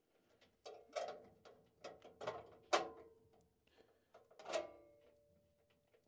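A handful of metal clinks and knocks, each with a short ringing, as a blower-motor run capacitor and its metal mounting strap are handled inside a furnace cabinet. The loudest knock comes a little under three seconds in.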